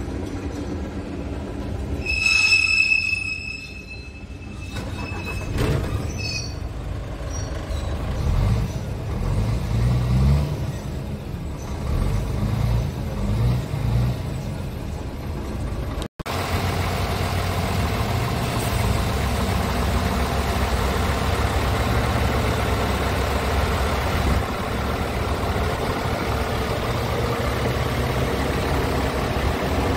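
Scania R tractor unit's diesel engine heard from inside the cab, revved in several short rises and falls about eight to fourteen seconds in, with a brief high tone about two seconds in. After a sudden cut about halfway, the engine idles steadily, heard from beside the chassis.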